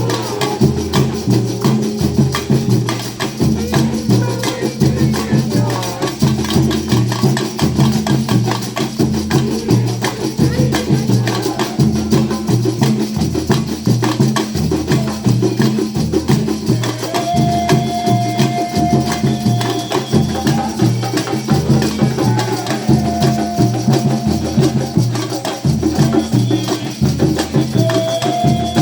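Music with a steady, evenly repeating bass beat and percussion. From about two-thirds of the way through, long held notes come in over it.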